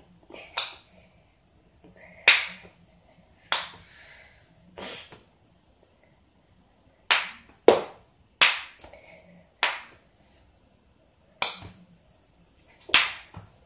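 Wooden kendama being played, its ball clacking sharply against the cups and spike about ten times at irregular intervals.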